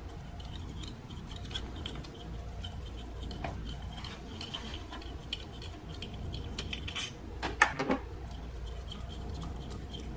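Light metallic ticking and clinking as a small nut holding the ignition coil ground wires is worked off by hand, with two louder clinks about seven and eight seconds in.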